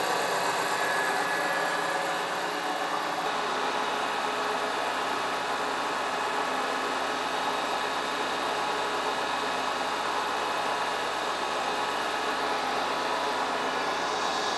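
Milling machine running at low speed while a high-speed steel T-slot cutter cuts dry through a cast-iron table: a steady mechanical hum and whine with the noise of the cut.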